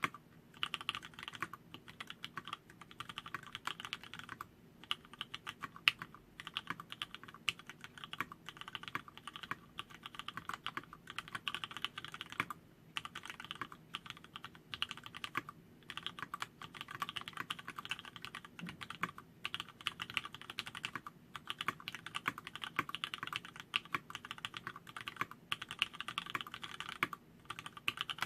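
Continuous fast typing on an LZ-IRON custom mechanical keyboard with vintage Cherry MX Black linear switches on 62 g springs and an aluminium plate: a dense run of keystroke clicks, broken by short pauses every few seconds.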